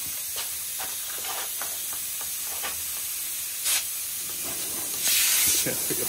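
Nitrogen hissing steadily out of a leaking soldered joint on a copper AC suction line pressurized to about 60 PSI: the joint is not sealed. A spray bottle of soapy water squirts briefly just before four seconds in, and longer near the end.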